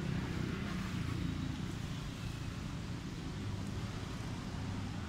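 Steady low rumble of outdoor background noise with no distinct event.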